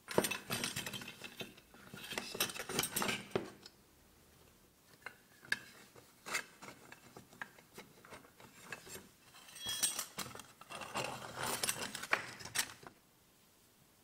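Small rusty metal parts of a hand-cranked coffee grinder's crank handle clinking and scraping as they are handled and turned, in two busy runs of rapid clicks with a few scattered ticks between.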